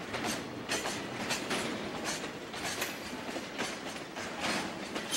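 Freight tank wagons rolling slowly through a yard during shunting, their wheels clicking and clattering over rail joints, about one click every half second, over a steady rumble.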